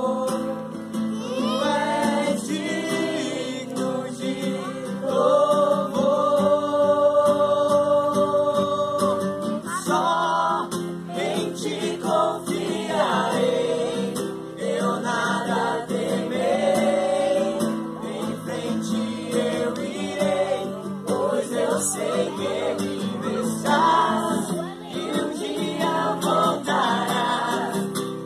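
Voices singing a gospel worship song with instrumental accompaniment, with some long held notes.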